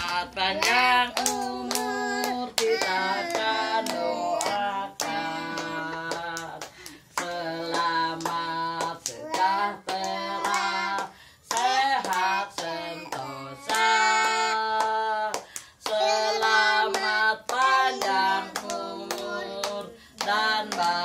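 Voices, a young child's among them, singing a birthday song in phrases of held notes, with handclapping throughout.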